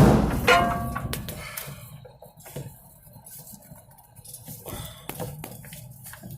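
Metal clanking while an oil filter is taken off with filter pliers: a loud knock, then a ringing metallic clang about half a second in, followed by scattered lighter clinks and rattles of tools and parts being handled.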